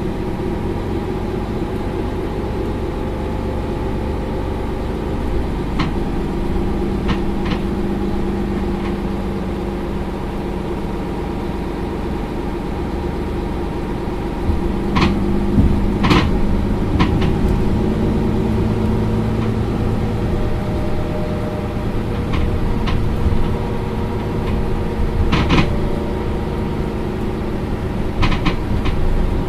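Mercedes-Benz Citaro Facelift LE bus's diesel engine running with a steady hum that grows a little louder about halfway through. Short sharp clicks and rattles come now and then, most clearly about halfway and near the end.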